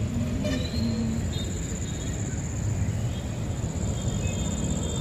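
Steady outdoor background noise: a low rumble with a thin, steady high-pitched hum over it, and a few faint short tones about half a second to a second in.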